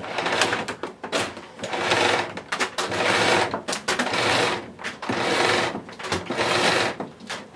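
Power cord of a Miele S8 cylinder vacuum cleaner being pulled out of its cord-rewind reel in a series of pulls, about one a second. Each pull gives a short rush of noise with clicks from the reel.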